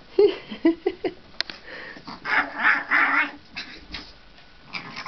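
Small dog barking excitedly: a few short, sharp yips in the first second, then a rougher run of barks a couple of seconds in.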